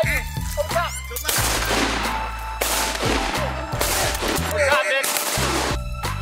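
Several hunters' shotguns firing in quick volleys at incoming ducks, over background music with a steady bass line.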